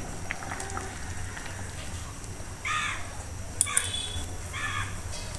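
A crow cawing three times, starting just after the middle, over the low steady simmer of dal in a pan and faint clicks of a spatula stirring.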